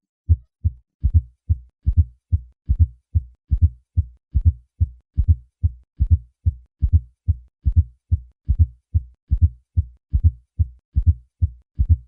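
Heart sounds with a fourth heart sound (S4 gallop): a low-pitched extra beat just before each lub-dub, repeating in a steady rhythm with a 'Ten-nes-see' cadence. An S4 is the sign of a stiff, poorly compliant ventricle, as in hypertension.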